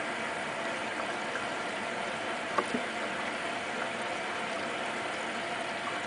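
Hotpoint Ultima WT960 washing machine running with its door open: a steady mechanical whir and hum, with two sharp clicks about two and a half seconds in.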